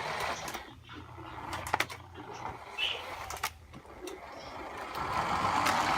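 Toy RC car driving over the floor: its small electric motor and wheels whir and rush, with scattered knocks and bumps, and the running noise grows louder near the end.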